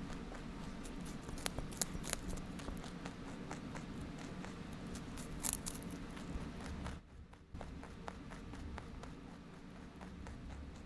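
Wood fire burning, with irregular crackles and sharp pops of catching wood over a low steady rumble of flame. The sound drops away briefly about seven seconds in.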